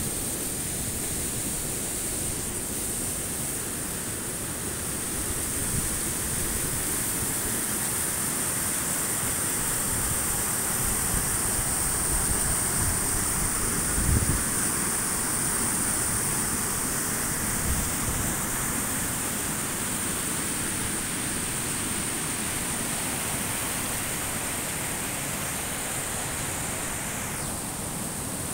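Steady rushing of a mountain stream, an even noise with a bright high hiss over it. A couple of brief low thumps come near the middle.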